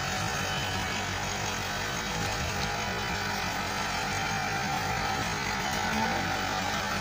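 Massey Ferguson 375 tractor's diesel engine running steadily under heavy load while pulling an overloaded sugarcane trolley.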